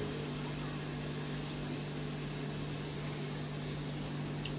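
A steady machine hum: a constant low drone with an even hiss over it, and one faint tick near the end.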